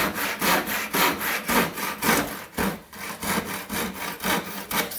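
Handsaw cutting across a timber loft-ladder side rail, with quick, regular back-and-forth strokes. The rail is being cut to length at 90 degrees so a foot can be fitted onto its end.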